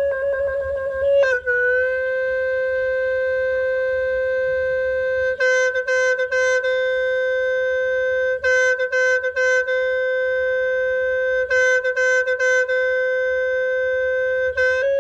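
Cambodian sneng, a free-reed animal-horn, sounding a long sustained single note. Quick fluttering ornaments open it, the pitch dips slightly about a second and a half in, and short bursts of rapid flutters interrupt the held note three times.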